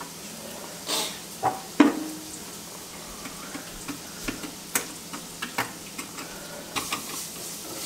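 Clicks and knocks from hands and a screwdriver working a metal hose clamp and plastic drain fitting on a garbage disposal's dishwasher inlet, the loudest knock about two seconds in, over a steady hiss.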